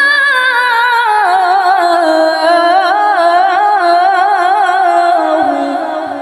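Woman's voice reciting the Quran in melodic tilawah style, holding one long drawn-out melismatic note with rapid wavering ornaments. The pitch steps down about a second in and again near the end as the phrase closes and fades.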